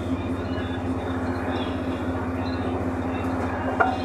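Steady low mechanical drone of an engine running, even and unbroken throughout, with a single sharp clink near the end.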